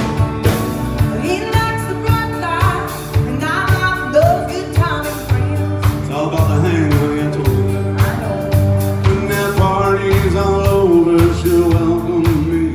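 Country song sung over a band, with a sung melody over bass notes and a steady drum beat.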